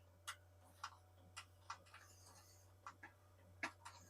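Near silence: a faint steady low hum with about ten soft, scattered clicks and ticks.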